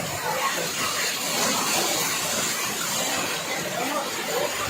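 Steady rushing noise of fast-flowing floodwater, with faint voices under it.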